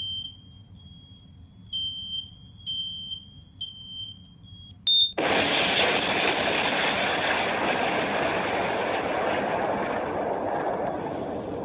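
High electronic alarm beeps, roughly one a second, then about five seconds in a sudden loud explosion sound effect: a blast that runs on as a long, slowly fading rumble.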